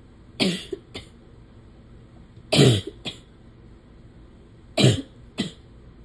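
A woman's sneezes in an allergy fit: three loud sneezes about two seconds apart, each falling in pitch and followed half a second later by a short, quieter burst.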